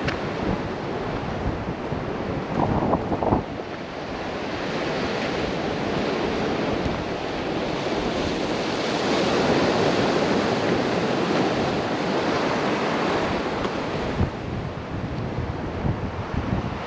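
Sea surf washing on the shore, swelling louder in the middle, with wind buffeting the microphone. A few short knocks about three seconds in.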